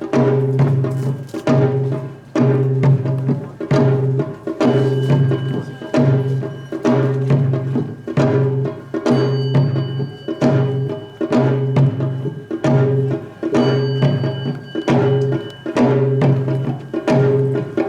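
Korean samul nori percussion ensemble of gongs and drums playing a steady, repeating rhythmic cycle: sharp strikes over ringing, held gong tones.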